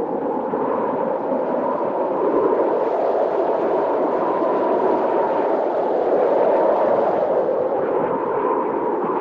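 Storm wind blowing as a steady rushing noise that swells a little in the middle, with no thunderclap.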